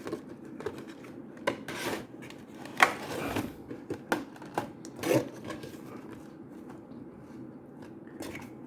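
Cardboard box and plastic packaging being handled and opened: scattered clicks, scrapes and short rustles, the sharpest click about three seconds in.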